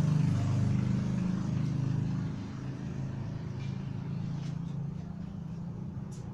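An engine running with a steady low rumble that eases off after about two seconds, with a few faint short clicks later on.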